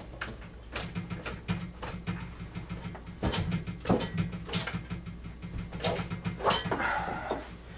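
Telephone cords and a corded phone being unplugged and handled: scattered clicks, knocks and rustling of plastic and cable over a steady low hum.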